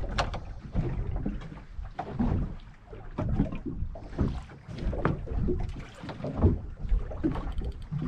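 Water slapping and lapping against the hull of a small fishing boat in uneven knocks and swells, with wind buffeting the microphone.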